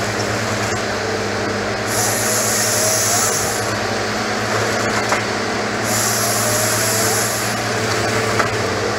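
Logging machines' diesel engines and hydraulics running steadily, with a high hiss rising over them twice for about a second and a half each, roughly four seconds apart, as the harvester head works the pine.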